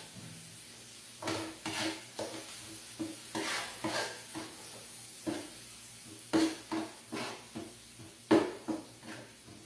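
A utensil stirring and scraping in a frying pan, with irregular knocks against the pan, the loudest two near the end. Butter is melting in among frying onion and garlic, with a faint sizzle underneath.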